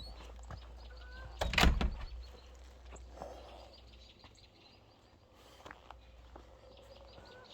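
A door shutting with a heavy knock about a second and a half in, with birds chirping repeatedly in the background.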